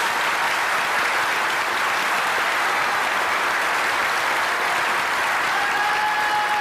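An audience applauding: dense, steady clapping that holds an even level throughout.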